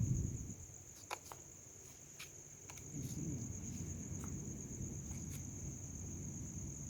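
Insects trilling in a steady, high-pitched chorus, over a faint low rumble with a few light clicks.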